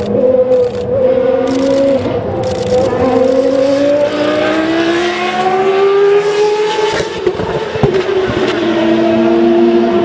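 Group C prototype race car engine running hard on track. Its pitch climbs for several seconds, falls about seven seconds in, then holds steadier near the end.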